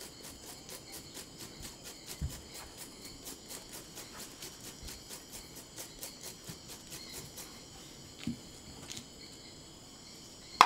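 Steady high drone of rainforest insects with a fast, regular scratchy pulse, about four or five a second, that fades out near the end. A soft low thump comes about two seconds in.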